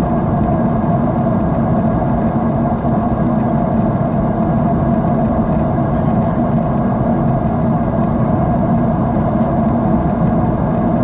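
Airliner cabin noise in flight: the steady drone of the jet engines and rushing air heard from a window seat, deep and even, with no change throughout.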